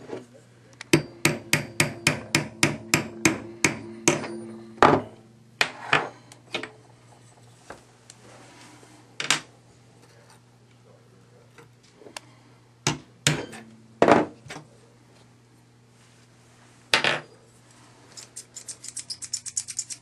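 Small hammer tapping a roll pin punch to drive the roll pin that holds a tactical latch on an AR-15 charging handle. A quick run of about a dozen sharp taps, roughly four a second, is followed by scattered single taps, then a fast run of lighter ticks near the end.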